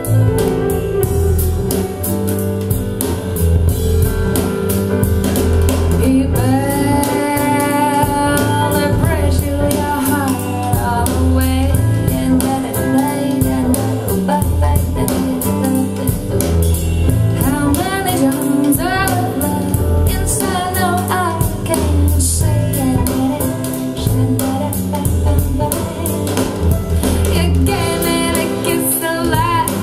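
A song with a female singer over bass, drums and guitar, played back as a sound sample of Sabaj A8 Class D power amplifiers driving a pair of loudspeakers. The singing comes in about six seconds in over a steady bass line.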